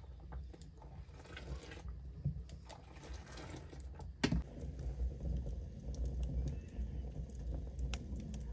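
Wood fire crackling under a cooking pot, with scattered ticks and a sharp pop about four seconds in, over a low steady rumble.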